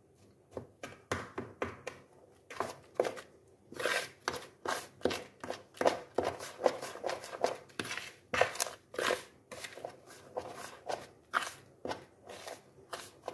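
Doughnut dough of flour, egg, sugar and melted butter being mixed and squeezed by hand in a plastic bowl: a run of short, sharp sounds, about two a second.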